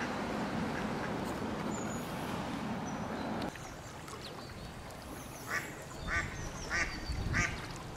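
A steady rushing noise that cuts off abruptly about three and a half seconds in, then mallard ducks quacking: about five quacks a little over half a second apart near the end.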